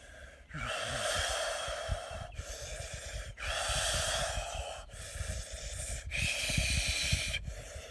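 A man's long, forceful breathy exhalations, like whispered 'haaa' sounds, about five in a row, each a second or so long with short breaks between.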